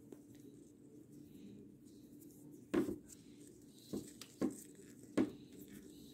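Four short, sharp clicks and crackles between about three and five seconds in as hands fold and press stiff plastic gift ribbon into a bow, over a faint steady background hum.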